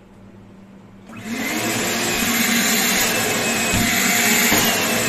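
RIDGID 4-gallon, 5 hp wet/dry shop vacuum switched on about a second in, its motor coming up to speed quickly and then running loudly and steadily, with a thin high whine over the rush of air.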